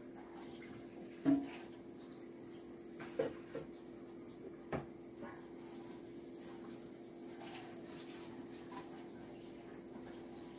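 Water running from a kitchen tap: a steady hiss with a low hum. Over it come a few light knocks as dough is worked by hand in a stainless steel mixing bowl.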